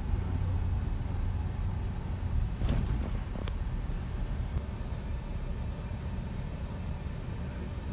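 Steady low rumble of engine and road noise heard inside a moving vehicle's cabin, with a short click about three and a half seconds in.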